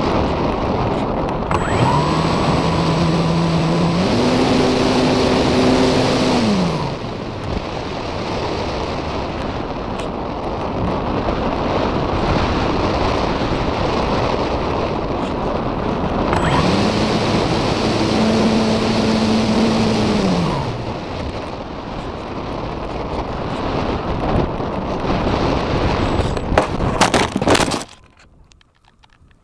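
Wind rushing over the on-board camera's microphone on a Parkzone Radian electric glider in flight. Twice the glider's electric motor is throttled up, its whine rising in steps, holding for a few seconds and then winding down. Near the end a few sharp clicks, then the rushing cuts off abruptly.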